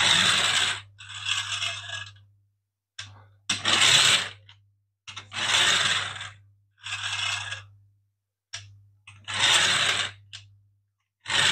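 3D-printed plastic rubber-band-powered car rattling and scraping in a string of short bursts, each about a second long, with near-silent gaps between them.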